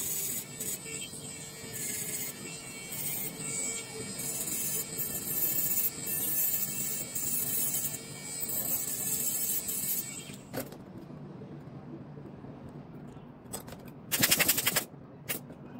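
Small handheld electric rotary grinder running with a steady whine and a hissing grind as it grinds leftover nickel and aluminium flakes off the metal tabs of a battery flex cable. It stops abruptly about two-thirds of the way through. A short loud burst of noise comes near the end.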